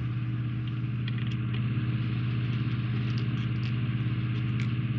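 A steady low hum with a pitched drone, over which come faint light clicks and taps of a plastic model deck plate being handled and turned over.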